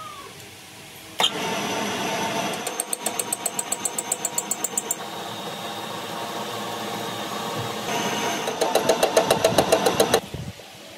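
Metal lathe running while cutting grooves into a steel wrench jaw. It starts with a sharp click about a second in, and a fast, even ticking of about seven pulses a second comes through twice. It stops shortly before the end.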